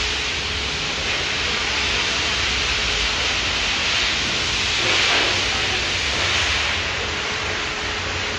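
Steady hiss of car-wash equipment, swelling briefly about five seconds in.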